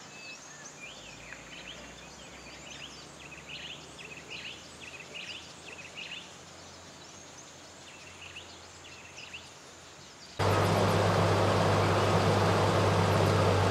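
Scattered short bird chirps, faint over low background noise. About ten seconds in they cut off and a much louder steady rushing noise with a low hum takes over.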